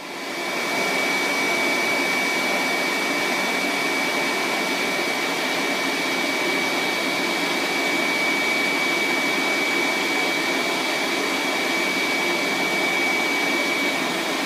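Epilog laser cutter running as it cuts basswood: a steady rush of blowing air with a steady high whine over it, swelling in about half a second after the start.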